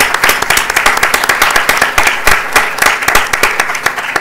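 Audience applause: many hands clapping in a dense, even patter that stops near the end.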